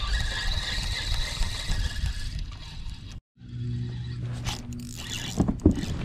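Close rubbing and scraping of a fishing rod and spinning reel being handled against the microphone. After a cut, a steady low hum with a few sharp knocks.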